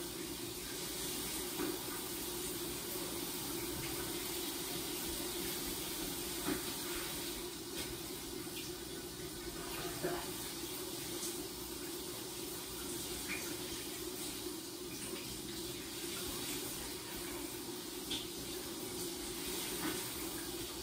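Shower running behind a glass door: a steady hiss of water spray falling in the stall, with a few faint knocks.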